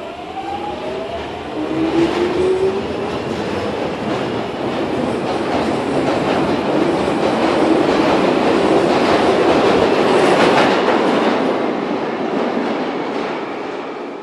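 London Underground Jubilee line train (1996 Stock) departing a platform: a rising whine from the traction motors as it pulls away, then a loud rush and clatter of wheels on rails that builds as it speeds past and fades near the end as the last car leaves.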